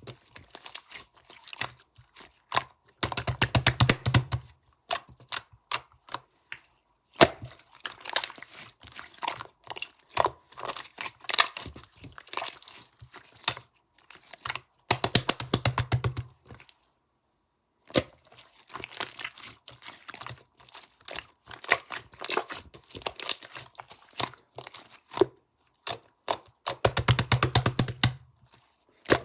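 Crinkling, crackling and tearing of a handled material in short runs of fast clicks, with three longer spells of rapid, louder crackling about 3, 15 and 27 seconds in.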